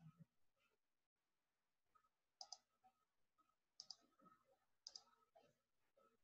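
Near silence with three faint, short clicks about two and a half, four and five seconds in.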